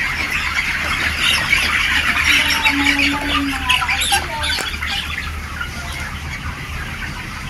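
A large flock of broiler chickens in a poultry house, a dense continuous chorus of chirps and squawks over a steady low hum.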